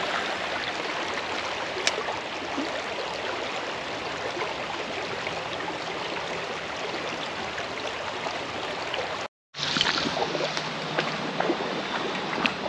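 Shallow creek water running over stones in a riffle: a steady rushing and babbling. It drops out for a split second about nine seconds in.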